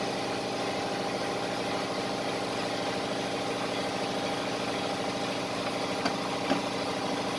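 Steady mechanical hum of a motor or engine running at an even speed, with a couple of faint clicks about six seconds in.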